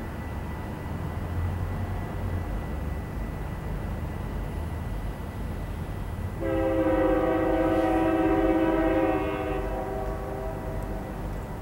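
Union Pacific diesel freight locomotive approaching with a low rumble. About six seconds in, its multi-chime air horn sounds one long blast of about three seconds.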